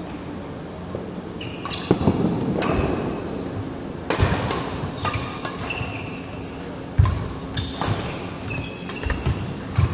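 Badminton doubles rally: sharp racket strikes on the shuttlecock and thuds of footsteps every second or two, with short squeaks of shoes on the court mat, echoing in a large metal-walled hall. The loudest hit comes about seven seconds in.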